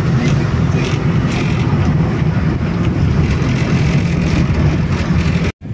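Steady low rumble of a vehicle's engine and tyres, heard from inside the cabin while driving. It cuts off abruptly near the end.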